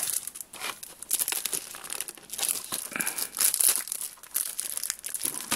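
Clear plastic shrink-wrap on a Blu-ray case crinkling as fingers pick at it and peel it off, an irregular run of sharp crackles.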